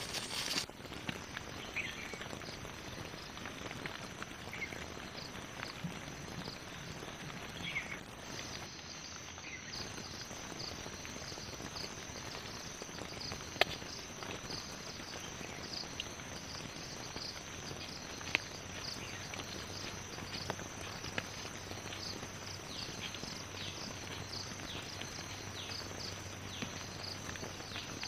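Forest ambience: a steady high insect trill with short falling chirps over a soft hiss. Two sharp clinks of a spoon on a steel plate stand out, about halfway through and again a few seconds later.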